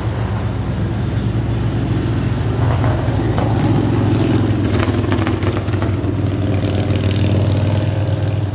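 Traffic on the road beside the camp: a vehicle's engine with a steady low note and tyre noise, growing slowly louder over the first few seconds and then holding.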